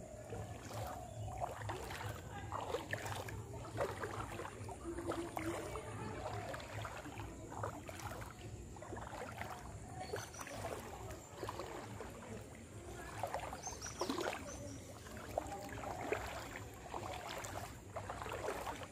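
Footsteps wading through shin-deep floodwater: repeated sloshing splashes at a walking pace.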